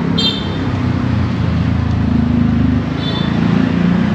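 Steady low rumble of passing road traffic, with two brief high-pitched squeaks, one near the start and one about three seconds in.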